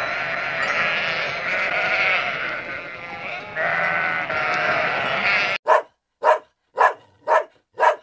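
A flock of sheep bleating, many calls overlapping. It cuts off suddenly, and a dog barks five times, about two barks a second.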